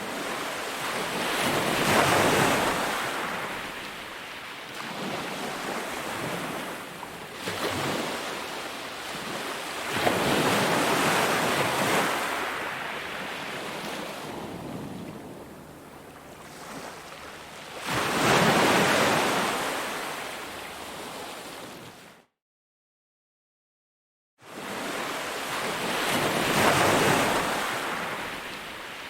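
Ocean surf on a beach: waves break and wash out in slow surges about every eight seconds. The sound cuts out completely for about two seconds late on, then resumes.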